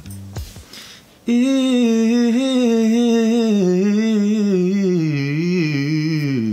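An unaccompanied man's voice singing a fast melismatic vocal riff in one unbroken breath, starting about a second in. The pitch flicks rapidly up and down through quick turns and dips lower toward the end. It is an attempt at the run that falls just short, by the singer's own reckoning.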